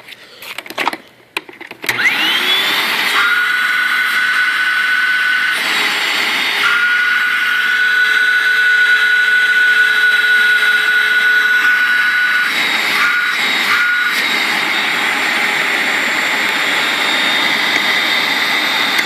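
A few clicks, then about two seconds in a Hoover WindTunnel upright vacuum cleaner's motor spins up with a rising whine and runs steadily with a high whine. The owner takes the motor to be burned out and the vacuum to have lost its suction.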